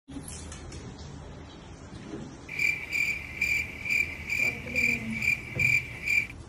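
Cricket-chirp sound effect: a high chirp repeating about three times a second, starting about two and a half seconds in and cutting off near the end, over faint room sounds.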